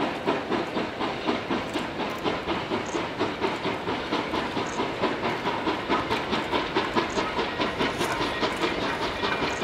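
Narrow-gauge steam locomotive working a train, its exhaust chuffing in a steady, even rhythm over a hiss of steam.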